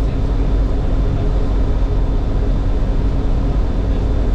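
Cirrus SR20's piston engine and propeller droning steadily, heard from inside the cockpit in flight.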